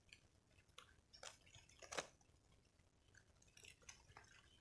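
Near silence, broken by faint, scattered small clicks and drips, the loudest about two seconds in.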